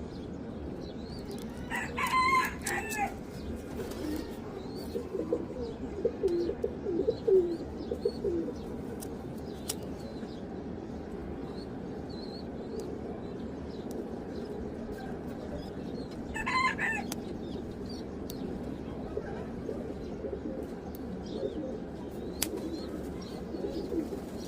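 Pigeons cooing in low, wavering calls, with a louder, higher bird call standing out twice, near the start and about two-thirds of the way through, over steady background noise.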